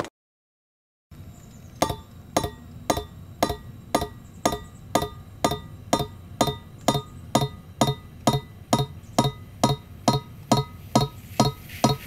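Background music with a steady beat, about two beats a second. Near the end a hiss rises under it.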